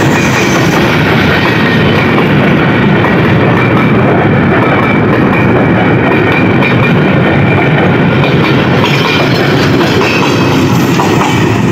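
Freight wagons of a goods train rolling past close by, with a steady, loud rumble and rattle of wheels on the rails and a thin high squeal running under it. The wagons end with the brake van.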